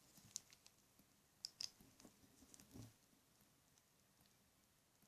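Faint, scattered plastic clicks and taps of a size 2 dental imaging sensor being fitted into its plastic holder, with a soft thud near the middle, then near silence.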